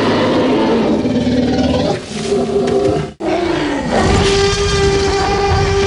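Dinosaur roar sound effect: long, drawn-out pitched roaring, broken off sharply about three seconds in and taken up again, held to near the end.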